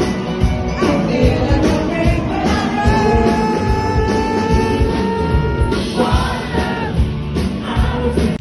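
Loud music with singing; the singer holds one long note from about three seconds in until nearly six seconds.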